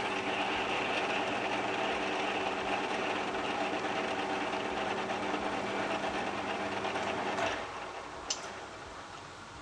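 Metal lathe running steadily with a hum and a rushing noise, likely during center drilling of a steel part; the sound drops and winds down about seven and a half seconds in, with a single click shortly after.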